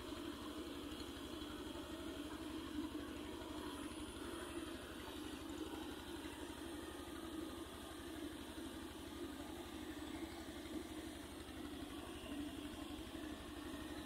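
Engine of a water pump running steadily, a constant drone with a fast even pulse, as it draws the pond dry through a suction pipe.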